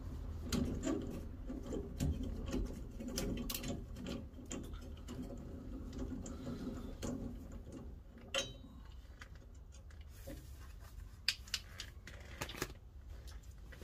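Irregular light clicks, knocks and rubbing of hand tools and parts being handled at a car's steering column, with a few sharper clicks in the second half.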